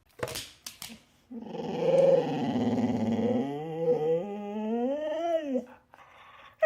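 Dog growling: a couple of short huffs, then one long growl of about four seconds that turns into a higher, wavering whine-like grumble toward the end.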